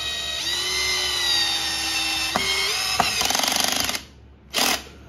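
Power drill driving a screw through a steel bracket into a metal desk frame: the motor whines steadily and rises in pitch just after the start. It then turns into a fast, even rattle for about a second and stops, with one short burst near the end.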